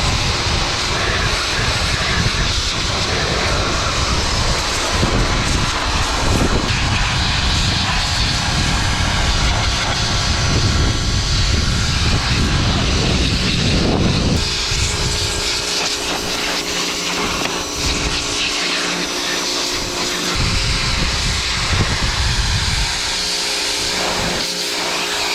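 Pressure washer running, its water jet hissing and spattering against a dirty bicycle's chain and gear cluster. About halfway through the low rumble drops away and a steady motor hum with several tones comes through.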